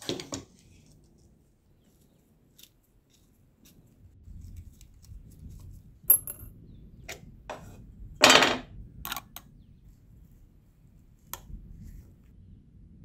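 Small metal parts of a disassembled metal toy pistol clinking and clicking against each other, the wooden table and a glass jar, in scattered sharp clinks with one longer, louder rattle about eight seconds in.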